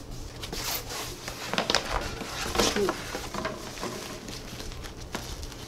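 Cardboard shipping box being opened by hand, with the paper and packing inside rustling and crinkling in short, irregular bursts and a few soft knocks.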